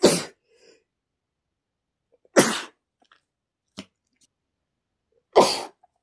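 A man with a cold sneezing three times, each sneeze a short sharp burst, about two and a half to three seconds apart.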